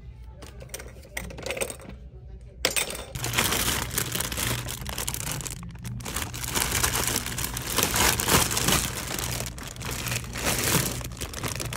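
Clear plastic bags of small toys crinkling as they are gripped and squeezed. The crinkling is faint at first and becomes loud and continuous from about three seconds in.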